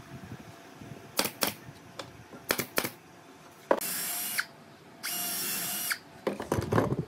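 Cordless drill running in two short bursts, the second longer, as it drills into the wooden chair frame. A few sharp knocks and clicks come before and after.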